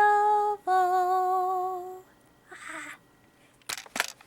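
A woman singing a cappella, holding the last two long notes of the hymn tune with vibrato; the second note is slightly lower and fades out about two seconds in. A short breathy sound follows, then a few sharp clicks near the end.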